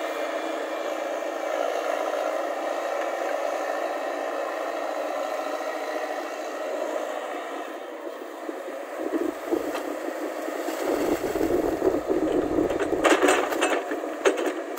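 JCB JS140 tracked excavator's diesel engine running steadily, growing louder and rougher about two-thirds of the way through as the arm works under load. A few sharp knocks sound near the end.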